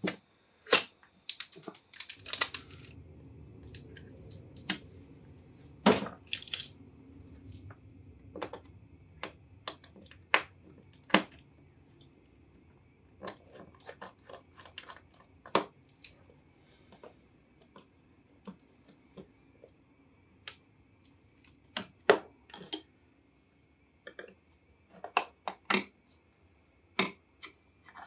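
Hands handling and pressing on the metal top cover of a hard disk drive: scattered sharp clicks and taps on the lid, with a soft rubbing from about 2 to 12 seconds in.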